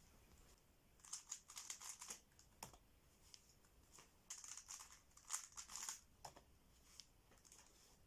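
Plastic speedcube being turned: two runs of quick clicking layer turns, one about a second in and a longer one about four seconds in, with a few single clicks between.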